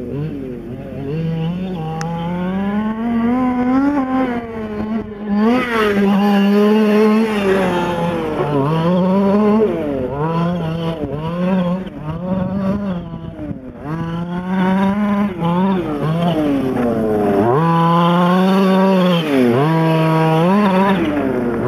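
Losi 5ive T fifth-scale RC truck's two-stroke gas engine, revving up and down over and over as it is driven, its pitch rising and falling with the throttle.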